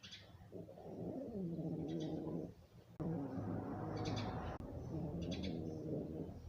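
Dog snoring in its sleep: three long, drawn-out snores, each with a pitched, wavering tone.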